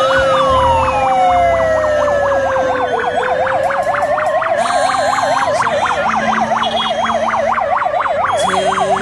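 Electronic vehicle sirens sounding at once: one slow wail that falls and then rises again, and one fast, warbling yelp.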